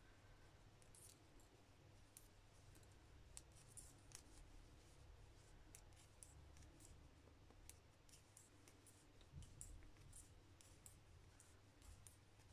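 Faint, irregular clicking and ticking of metal knitting needles as stitches are purled, over near-silent room tone.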